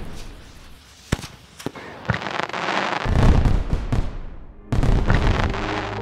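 Fireworks going off: a few sharp bangs about a second in, then a louder, longer rumbling burst, and another sudden loud burst a little before the end.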